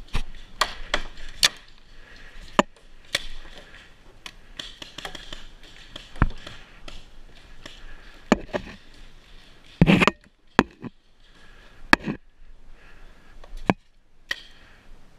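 Paintball markers firing scattered shots during a game: sharp single pops at irregular intervals, with a quick cluster of several about ten seconds in.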